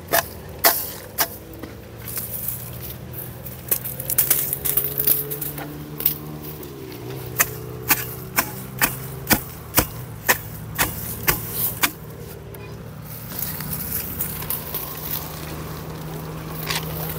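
Hoe chopping into dry sandy soil and grass roots: a series of sharp strikes, with a fairly even run of about two a second in the middle. A steady low hum runs underneath.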